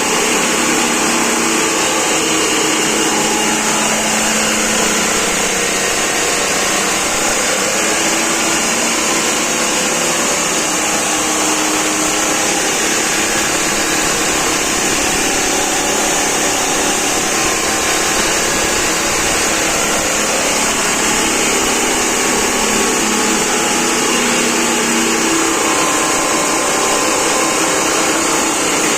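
Grass chopper machine running steadily, its motor and spinning blades giving a continuous mechanical whir with a strong high hiss.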